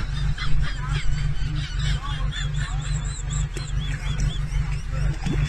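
Birds calling: a quick run of short, high, repeated calls in the middle, over a loud, steady low rumble.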